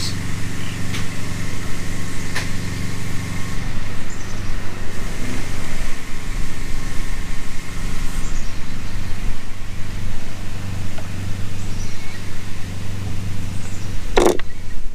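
A steady low mechanical hum, with a single short clack near the end.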